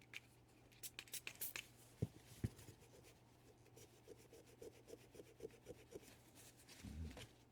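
Faint scraping and rubbing on a small salvaged electronic component as it is cleaned by hand: a few light clicks and two knocks, then a run of short rapid scratching strokes.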